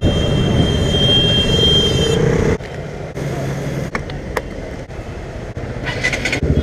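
KTM Duke's single-cylinder engine running under way in town traffic, with road noise and a steady high-pitched tone held for about two seconds. About two and a half seconds in the sound cuts to a quieter scene with a few sharp clicks as the key turns in the fuel-tank cap.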